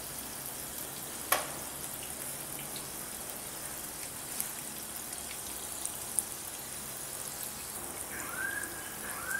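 Bedmi pooris deep-frying in hot oil in a kadhai on a medium flame: a steady sizzling hiss. About a second in there is one sharp metal clink, and a few lighter ticks follow as the wire-mesh skimmer touches the pan. Near the end come a few short rising tones.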